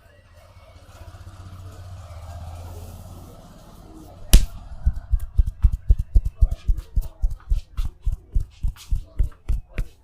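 Hands slapping and tapping rhythmically on a person's body in a percussive massage, about four strikes a second, opened by one sharp loud slap. Before it, a few seconds of soft rustling.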